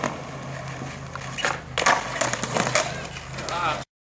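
Skateboard wheels rolling on a concrete driveway, with several sharp clacks of the board, the loudest about one and a half and two seconds in. The sound cuts off abruptly just before the end.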